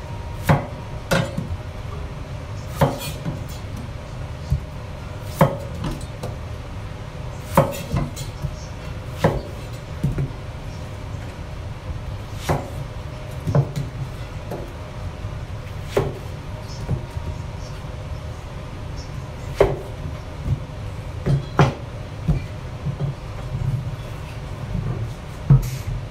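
Kitchen knife cutting through whole peeled onions and striking a plastic cutting board, giving sharp knocks every one to three seconds over a steady low hum.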